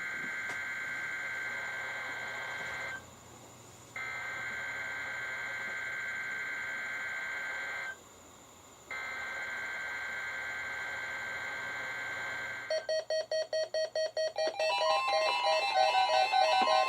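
NOAA Weather Radio SAME digital header: three bursts of rapid two-tone data warble, each about four seconds long with about a second between them, encoding a Required Weekly Test. Near the end a fast pulsing electronic beep starts and runs into a tune of electronic tones.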